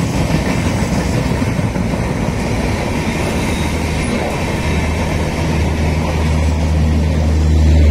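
Indian Railways LHB passenger coaches running past at speed, a steady rush of wheel and rail noise. A steady low hum builds over the last few seconds as the chevron-striped end car draws level, typical of an LHB end-on-generation power car's diesel generator.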